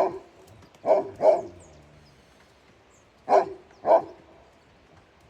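A dog barking in short barks: one at the start, two close together about a second in, and two more a little after three seconds in.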